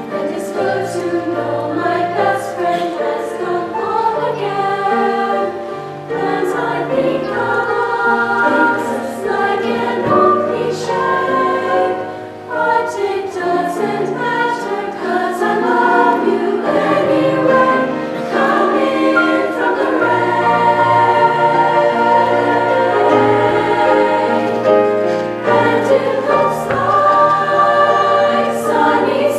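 Women's choir singing a slow song, with sustained, overlapping voices that grow louder in the second half.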